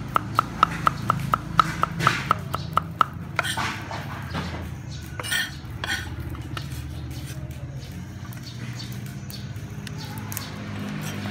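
Cleaver chopping garlic on a wooden chopping board, about four quick chops a second, stopping about three seconds in. Then scattered knocks and scraping as the blade sweeps the minced garlic off the board.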